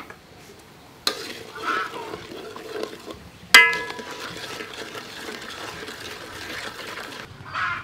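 A metal ladle stirring thick chili-tamarind sauce in an aluminium wok, with a sharp ringing clang of the ladle striking the wok about three and a half seconds in. The stirring and simmering of the sauce carry on after it until near the end.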